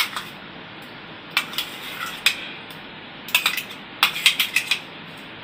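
A metal spoon clinking and scraping against a steel mixing bowl while paste is spooned out, in several short clusters of sharp clinks.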